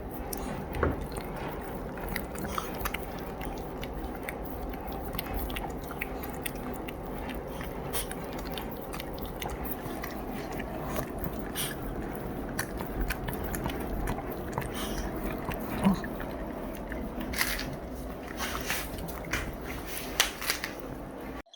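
Pomeranian chewing and biting on a hard dog candy treat, with irregular small clicks and crunches of teeth on the candy.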